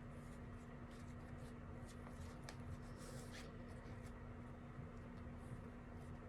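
Faint rustling and scratching of ribbon being handled and looped by hand, in short scattered strokes with the busiest stretch about halfway through, over a steady low hum.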